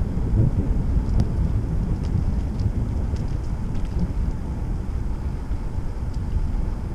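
Wind buffeting the microphone of a moving bicycle, a steady low rumble, with a few faint light ticks scattered through it.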